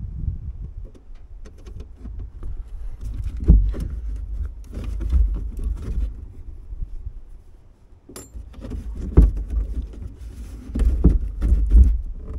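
Hands working on a truck toolbox lid's latch and release cable: scattered light metal clicks and knocks over a low rumble on the microphone.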